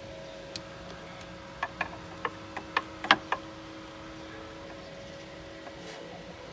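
A quick run of about eight sharp clicks and knocks over a second and a half, the loudest near the middle: plastic wiring-harness connectors being handled and worked loose under a car's dashboard. A steady faint hum runs underneath.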